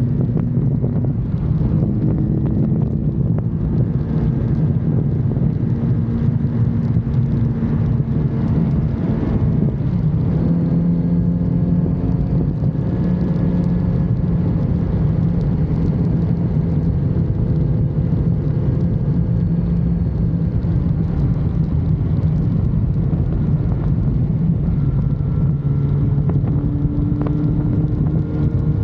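Kawasaki Z900RS's inline-four engine on its stock exhaust, heard while riding, its pitch rising and falling with the throttle and shifting about ten seconds in. Wind rushes over the microphone throughout.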